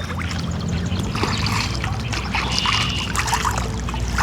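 Canada geese bathing in a pond, a steady run of splashing and water dribbling off them as they wash.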